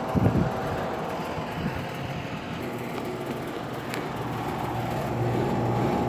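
A 2007 Rheem Classic 13 SEER 2.5-ton central air conditioner's outdoor unit running, which the owner calls shaky. Its compressor makes a steady hum under the even rush of the condenser fan.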